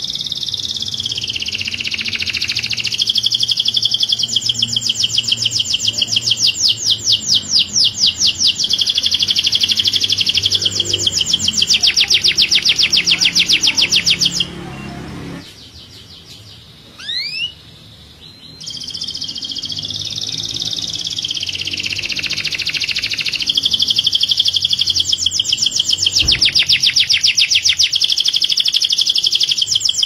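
Male canary singing long phrases of rapid trills and whistled notes. About halfway through, the song breaks off for a few seconds, broken only by a couple of short rising whistles, then starts again.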